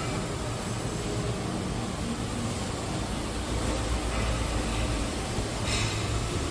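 TJ300 automatic vegetable cutting machine running while it shreds cabbage: a steady low motor hum under an even rushing hiss.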